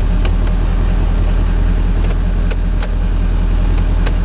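Ford 6.7L Powerstroke V8 turbo-diesel idling steadily, with a few faint ticks scattered over it.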